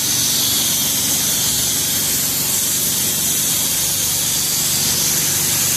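Steady, loud hiss of the spray equipment used to apply the roof coating, with a faint low hum beneath it.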